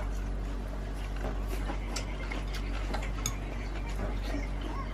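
Scattered light clicks and taps of people eating at a table, chopsticks and dishes, over a steady low hum from the RV's running air conditioner.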